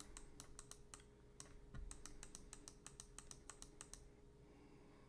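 Faint computer keyboard typing: a run of quick, irregular key clicks that thins out about four seconds in.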